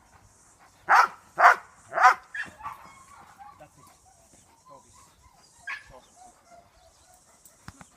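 Large dog barking three times in quick succession, about half a second apart, starting about a second in.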